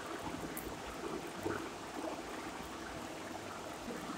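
Soft, wet rubbing of hands massaging a damp face pack on the skin, heard as a faint, steady hiss-like noise.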